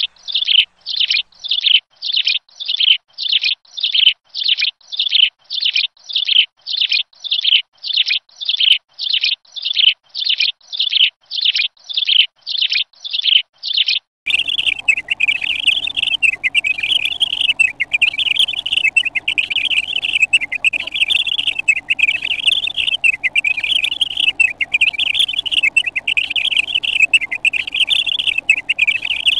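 Felt-tip marker squeaking on paper as it colours in, about two short falling squeaks a second with each stroke. About halfway through the sound changes abruptly to a continuous wavering squeak over a faint hiss as the colouring goes on.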